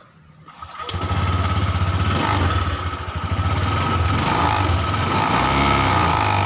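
Honda Vario 150 eSP scooter's single-cylinder engine running, with the rear wheel spinning on the stand; the engine sound comes in about a second in and then holds steady. This is the demonstration of a rattle ('kemretek') from the rear bodywork that shows at high revs and is later traced to the radiator filler cover.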